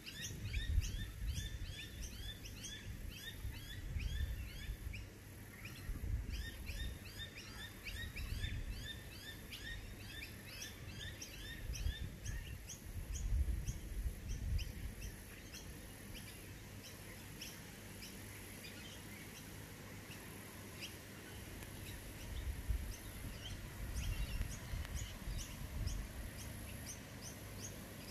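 Small birds chirping in a busy chorus of short, quick chirps that thin out in the second half, with gusts of wind rumbling on the microphone now and then.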